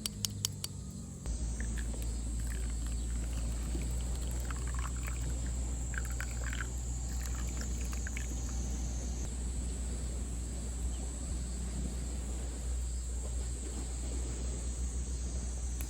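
Outdoor summer ambience: a steady high-pitched insect drone over a low rumble, with a few short chirps. The rumble comes in suddenly after a few clicks about a second in.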